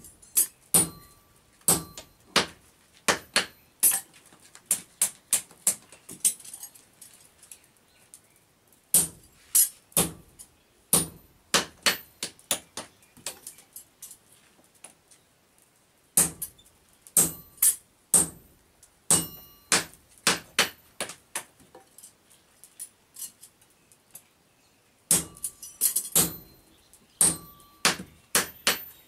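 Hand hammer blows on a red-hot axe head held on an anvil, in bursts of quick strikes with short pauses between. Some strikes leave a brief metallic ring.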